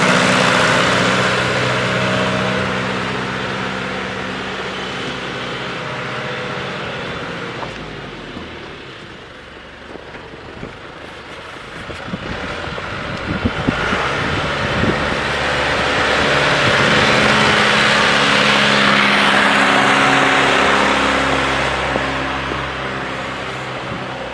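Tractor engine running steadily as it pushes snow with a front plow, loud as it passes close, then fading as it moves away. A patch of irregular knocks comes in the middle, and the engine grows louder again with more broad noise before easing off near the end.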